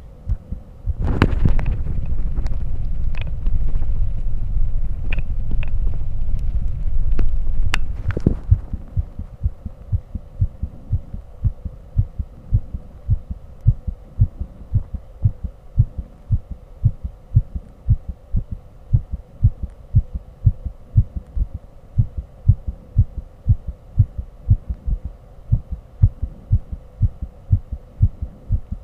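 Human heart sounds picked up by a microphone on the chest: for the first several seconds a loud rustling rumble with a few sharp clicks covers them, then steady, regular heartbeats come through as low thumps, over a faint steady hum.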